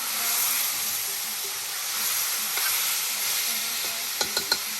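Chicken stewing in browned sugar and oil in a pot, sizzling steadily. Three quick knocks come near the end.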